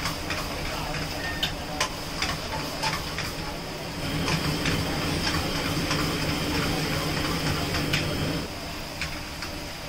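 A metal spatula scraping and clicking against a pan while thick paneer gravy is stirred over a gas burner, under a steady hiss of flame and sizzling. A louder low rumble comes in about four seconds in and drops away a little after eight seconds.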